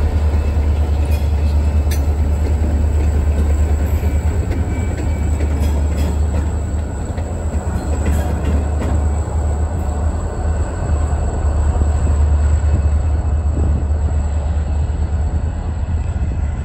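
Two EMD SD40-2 diesel locomotives, each with a 16-cylinder 645 two-stroke engine, working under power as they pass close by: a deep, steady engine rumble with a few sharp clicks. The sound eases off slightly in the last few seconds as they move away.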